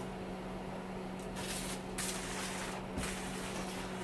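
Steady low hum with three short bursts of rustling hiss in the second half, as scrap parts are handled on a workbench.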